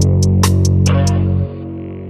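Background music with guitar, a held bass note and sharp hi-hat ticks, dropping away about one and a half seconds in.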